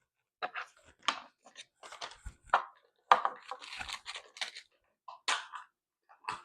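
Protective plastic wrapping on a slime container being torn and crinkled by hand, in short irregular rustling bursts.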